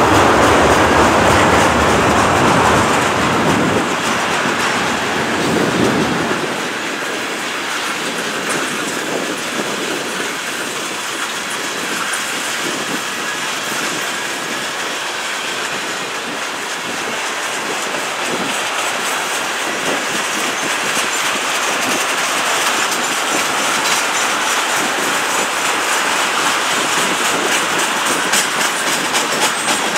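Freight train's tank cars and covered hopper cars rolling past, steel wheels clacking over the rail joints over a steady rumble and hiss. The low rumble is heavier for the first several seconds, then thins, and the clacks grow more distinct near the end.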